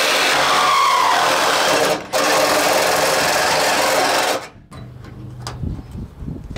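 Milwaukee Hackzall one-handed reciprocating saw running steadily as it cuts through the rusted sheet metal of a car door, with a brief break about two seconds in. It cuts off suddenly after about four and a half seconds, followed by a few light knocks as the cut pieces of metal are handled.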